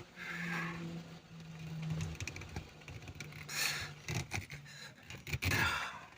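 A drilled golf ball being forced and twisted down onto a car's gear-shift lever as a shift knob: scraping and rubbing with scattered clicks, loudest twice, around the middle and near the end, over a steady low hum.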